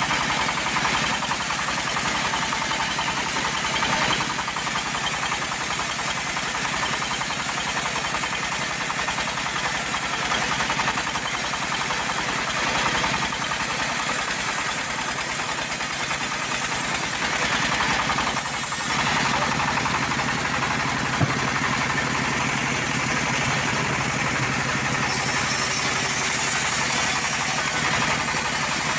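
Homemade band sawmill running steadily, its blade sawing through a teak log with a constant machine drone and cutting noise. The sound briefly dips a little past two-thirds through, then carries on with a single sharp tick soon after.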